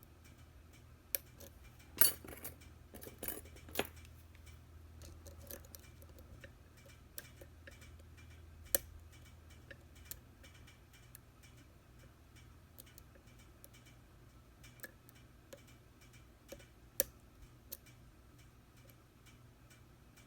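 Picking a security-pinned Schlage Everest lock cylinder with a hook pick and tension wrench: scattered small metallic clicks and ticks, with a cluster of sharper clicks about 2 to 4 seconds in and single ones later.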